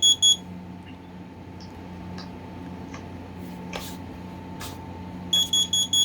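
Kidde KN-COB-LP2 carbon monoxide alarm sounding its test with high piezo beeps in groups of four, the temporal-four pattern of a CO alarm. The last beeps of one group come at the start, and after a pause of about five seconds a full group of four comes near the end. Two faint knocks fall in the pause.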